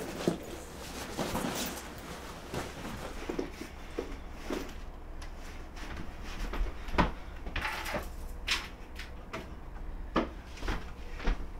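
Scattered knocks, clicks and brief rustles of a person packing a backpack and handling things on a shelf.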